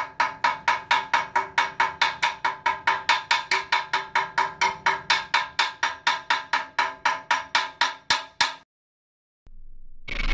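Steady rapid clicking, about four sharp strikes a second, each with the same short ringing tone; it stops abruptly about eight and a half seconds in.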